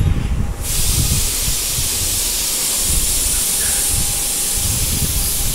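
A loud, steady hiss that starts abruptly about half a second in and holds even, over a low rumble.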